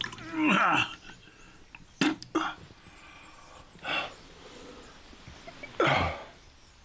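A sick man coughing and groaning in short, harsh fits, about five times, several of them sliding down in pitch.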